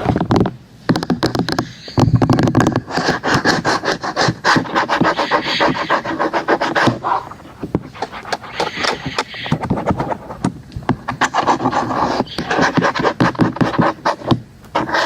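ASMR tapping and scratching on objects close to the microphone: quick runs of small taps mixed with scratchy rubbing, in bursts with short pauses between.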